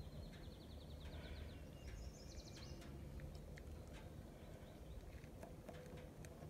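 Faint outdoor background noise with a bird trilling: a rapid run of repeated high notes in the first two seconds or so. A few faint ticks follow.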